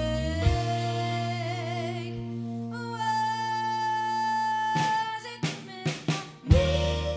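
Live rock-soul band music: a long held note with vibrato over sustained accompaniment, then a higher held note, broken by a run of drum hits about five seconds in before the full band comes back.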